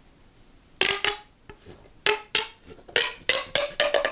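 Plastic fidget toy being bent and popped: an irregular series of sharp clicks and pops that start about a second in and come faster near the end.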